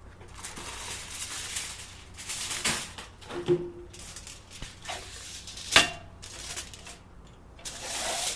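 Aluminum foil being crinkled and pressed around the edges of stainless steel pieces for a weld purge, in stretches of rustling with a few sharp clicks and a short ringing knock of metal about halfway through.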